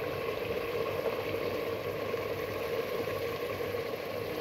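Mutton frying in oil in a pressure cooker: a steady sizzle, with a faint steady hum under it.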